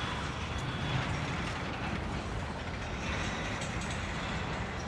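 Freight train passing, a steady, even noise of rail cars rolling along the track.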